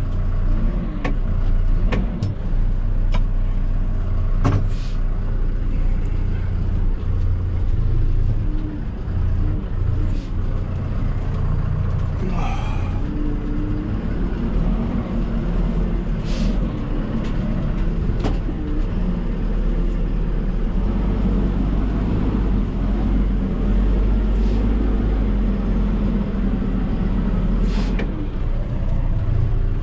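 A heavy vehicle's engine running steadily, with a few sharp clicks and knocks scattered through it.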